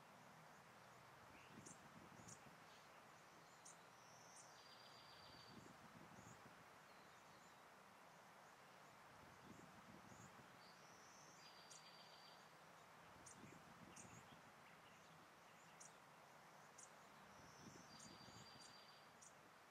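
Faint bird song: a small songbird repeats the same short song three times, about every six or seven seconds, a high held whistle followed by a buzzy trill, with scattered short high chips between.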